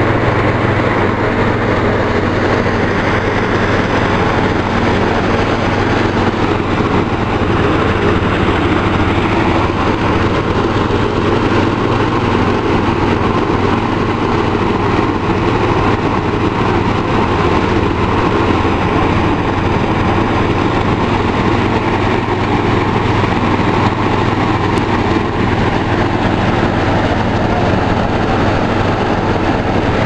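Engine-driven rice thresher running steadily while threshing rice stalks, a loud, even machine hum under the rush of straw going through the drum.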